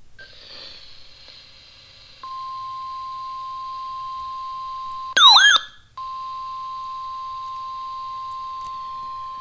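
NOAA Weather Radio warning alarm tone: a steady, loud 1050 Hz beep that starts about two seconds in and holds, signalling that a warning broadcast is about to follow. A little past halfway, a brief, louder warbling sound that slides up and down in pitch cuts across it for under a second, and then the tone resumes.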